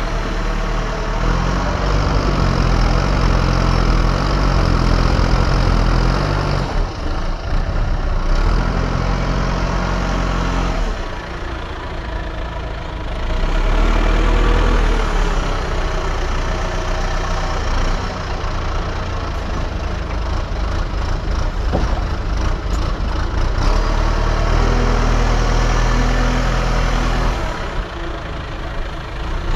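Diesel engine of a digging machine running steadily, its pitch stepping up and down as the load changes, with brief easings in level twice.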